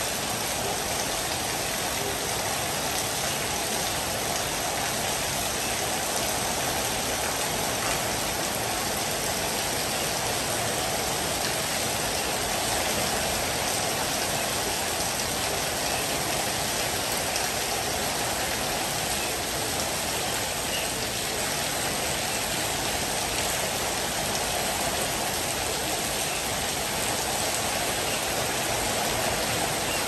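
Heavy rain falling: a steady, even hiss with no let-up.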